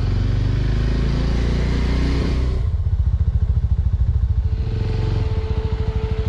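Small motorcycle engine pulling away and accelerating, then easing off sharply about two and a half seconds in and running at low revs as the bike rolls slowly on.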